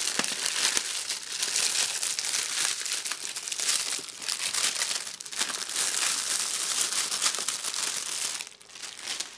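Plastic wrapping on a clear plastic rubber-band kit case crinkling loudly as it is pulled and torn off by hand, dying down near the end.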